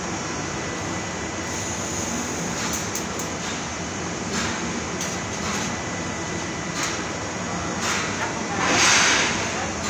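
Steady machinery din of a fabrication shop, broken by several short hissing bursts; the loudest and longest comes about nine seconds in.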